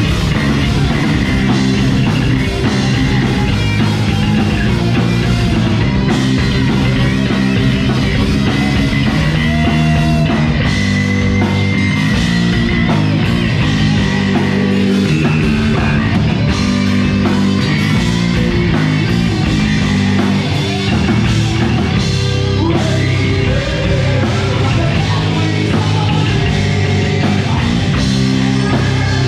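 Live metal band playing: distorted electric guitars, bass and drums, loud and steady, with the singer's vocals at times.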